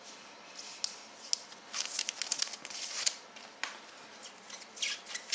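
A trading card packet being torn open and its wrapper crinkled: a run of short crackles and crinkles, busiest about two to three seconds in and again near the end.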